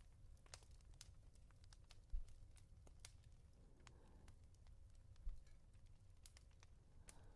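Slow, soft pats of a hand on a plush blanket, two dull thumps about three seconds apart. Faint, sparse crackling of a fireplace runs throughout.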